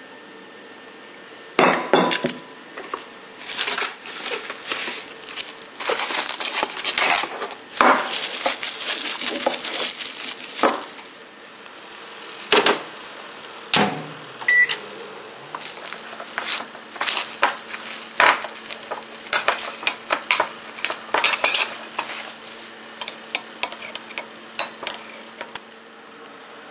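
Kitchen handling sounds: repeated clinks and knocks of a glass bowl and utensils, with some crinkling of plastic wrap. About halfway, a thump and a single short beep from the microwave's controls, then a steady low hum from the running microwave, while a metal spoon clinks against the glass bowl.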